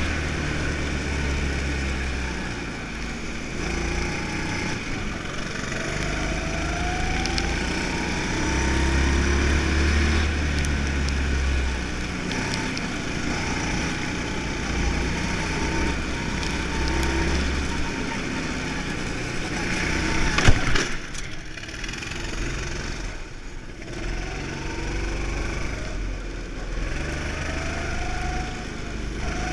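Go-kart engine heard from on board, its pitch rising and falling again and again as it revs up and drops off through the corners. A sharp knock about twenty seconds in, after which the sound is briefly quieter.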